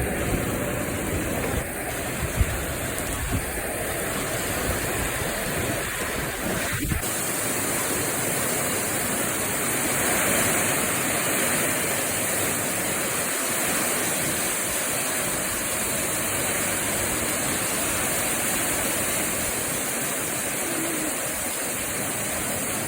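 Heavy rain falling steadily, a dense even hiss. Low gusts of wind buffet the microphone for about the first seven seconds, then stop.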